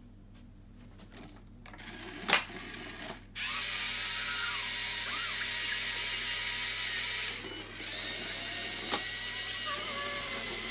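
Electric drive motors and gears of a Disney R2-D2 toy robot whirring as it moves across the carpet. A sharp click comes about two seconds in, the motors start abruptly about a second later, and they stop briefly about seven seconds in before running on a little quieter.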